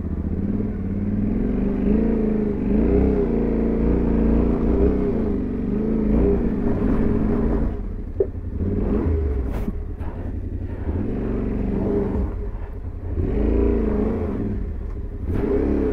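Yamaha Ténéré 700 parallel-twin motorcycle engine being ridden off-road, its pitch rising and falling again and again as the throttle is opened and closed, with a couple of brief knocks partway through.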